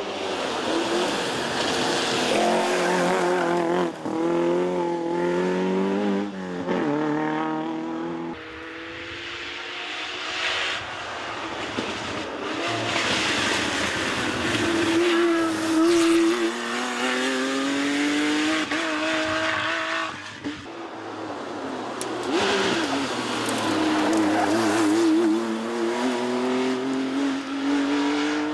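Rally cars driven hard one after another: an Opel's engine revving up through the gears with quick shifts, then, after a sharp break about eight seconds in, a Porsche 911's flat-six climbing through the revs and dropping back at each gear change as it passes.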